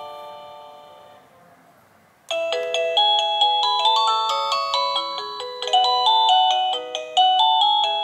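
INTENDVISION wireless doorbell receiver playing its chime tunes: the last notes of one electronic melody fade away, then about two seconds in a new tune starts, a quick run of clear, bell-like electronic notes.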